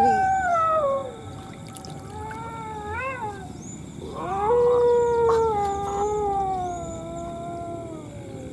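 Long, drawn-out howling wails in three stretches. The first slides down in pitch over the first second, a shorter wavering one comes around three seconds in, and a long one starts about four seconds in and slowly falls.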